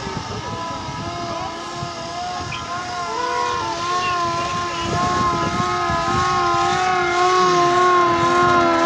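Several sustained siren tones, each wavering gently up and down, join in over the noise of a marching crowd and grow louder toward the end.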